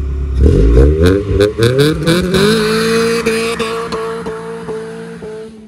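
Acura Integra accelerating away hard: the engine revs climb in quick rising sweeps, with a few sharp cracks, then settle into a steady note that fades as the car drives off.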